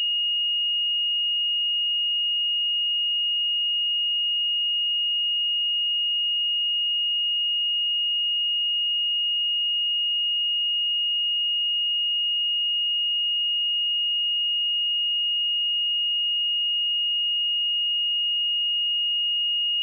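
A pure 2862 Hz sine-wave test tone, held steady at one high pitch.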